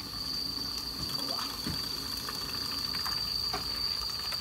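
Portable gas stove burners hissing steadily on a high flame, with a steady high insect trill over them and a few faint ticks.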